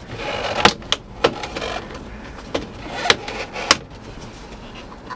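An aftermarket Sony single-DIN car stereo being worked loose by hand and pulled out of its dash opening. Plastic and metal scrape and rattle, with about half a dozen sharp clicks and knocks over the first few seconds as the unit's retaining clips give way.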